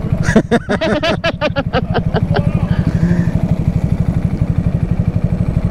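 Honda Grom's 125 cc single-cylinder engine idling with a steady, even pulse. A person's voice breaks in briefly over the first two seconds.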